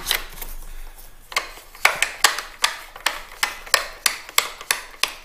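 A run of sharp hard-plastic clicks, about two or three a second, starting about a second in: the Clack WS1 water softener valve's plastic bypass valve being fitted onto the control valve by hand.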